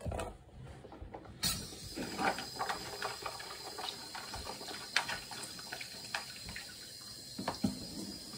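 Kitchen tap running into a sink, starting about a second and a half in, with a few knocks and clinks of dishes and utensils being handled under the water.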